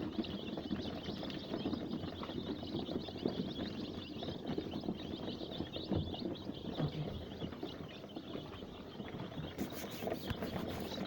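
A brood of five-day-old layer chicks peeping continuously, many short high cheeps overlapping, with a few sharp clicks near the end.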